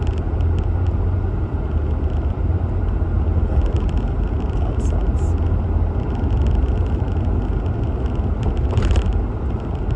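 Steady low road and engine rumble heard from inside a moving car's cabin, with a short brighter noise near the end.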